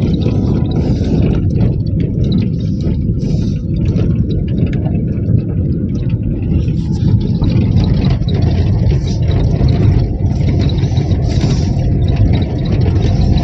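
Road noise inside a car driving over a rough gravel road: a steady low rumble of tyres and engine, broken by scattered small knocks and rattles from the bumps.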